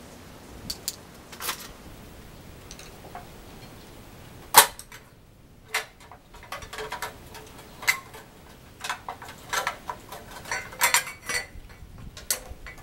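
Clicks and plastic clatter as the round plastic crank-side cover of a bicycle's chain case is pried off with a screwdriver: one sharp click a little over a third of the way in, then a run of smaller clicks and rattles.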